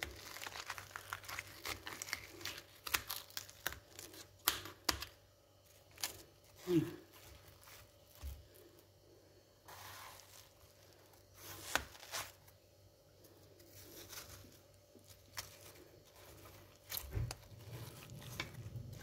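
A knife cutting through ripe watermelon flesh: irregular crisp, wet crunching and tearing, with a few sharp clicks.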